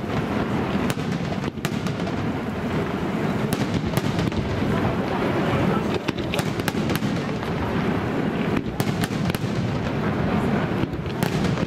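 Aerial fireworks display: a steady dense din of shell bursts, with many sharp cracks and pops scattered through it.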